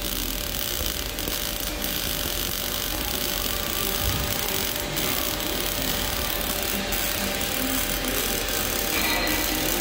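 MIG welding arc crackling steadily as a bead is run along a steel pipe-to-elbow joint.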